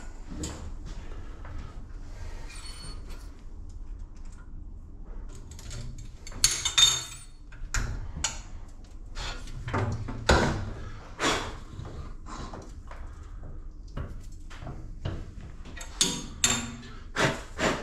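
Metal tools and parts of a valve-seat cutting machine being handled: irregular clunks, knocks and scrapes as the cutter head is moved and a T-handle tool is set down on the steel bed. A low steady hum lies underneath, with the loudest knock about ten seconds in and a quick run of clunks near the end.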